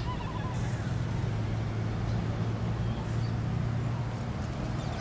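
A steady low engine hum that grows stronger in the middle and eases off near the end, over a hiss of outdoor background noise, with a faint bird chirp at the start.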